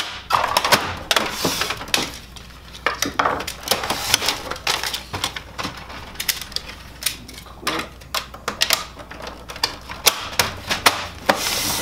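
Irregular plastic clicks, knocks and short scrapes from a Kyocera FS-4200/4300 laser printer's covers and panels as they are snapped shut and handled.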